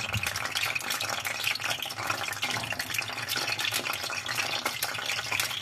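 Cubes of eggplant sizzling in hot vegetable oil in a frying pan: a dense, steady crackle of many small pops as more cubes are dropped in by hand.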